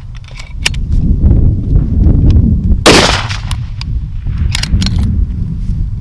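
A single shot from a Remington 700 5R rifle in .308, fired about three seconds in, with a short echo after it. Strong wind rumbles on the microphone throughout.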